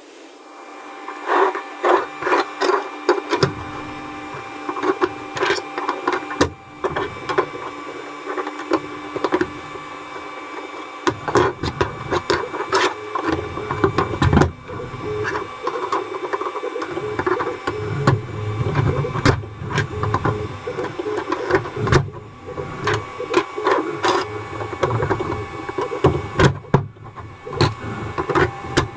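Creality Ender 5 Pro 3D printer running, its stepper motors whirring with steady tones, under frequent clicks and knocks of printed PLA frame parts being handled and pressed together.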